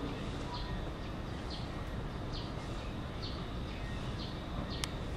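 A small bird calling over and over with short, high, falling chirps, a little more than one a second, over steady outdoor background noise. A single sharp click comes near the end.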